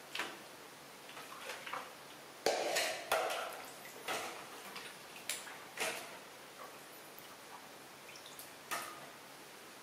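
Water splashing and sloshing in a plastic basin as a baby monkey paddles and moves about in it, in a handful of irregular splashes, the biggest about two and a half seconds in.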